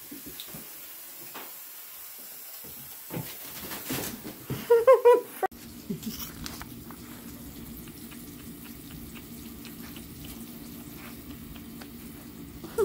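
A tabby cat's paws pattering and scratching in an empty bathtub, with one short high meow about five seconds in. After that comes a steady low hum.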